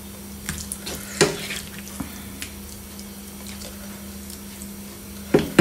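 A metal serving spoon scraping and knocking against a frying pan and a plate as stir-fried pork and vegetables are scooped out and served, a few sharp clinks with the loudest about a second in, over a steady low hum.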